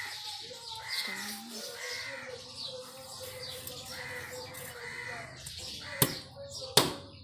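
Knife chopping into fish on a wooden log chopping block: two sharp chops a little under a second apart near the end. Birds call repeatedly in the background, about once a second.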